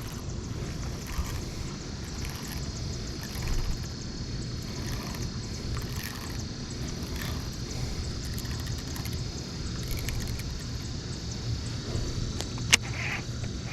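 Steady low rumble of a fishing boat on the water, with a thin steady high tone above it and one sharp click near the end.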